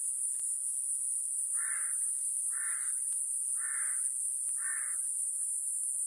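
Iwasaki's grass cicada (Mogannia minuta) singing: a steady, very high-pitched, unbroken buzz. A fainter bird call sounds four times, about once a second, starting about one and a half seconds in.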